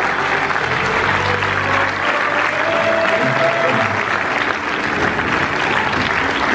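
Audience applauding steadily over music; the music's low bass notes stop about four seconds in while the clapping carries on.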